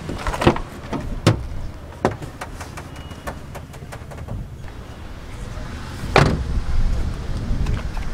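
Clicks and knocks from a Toyota Innova's doors and interior being handled, then a car door shut with a thud about six seconds in.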